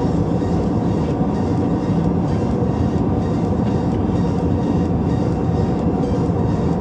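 Steady in-flight cabin noise of an Airbus A320 airliner: engine and airflow rumble, even and unchanging, heaviest in the low end.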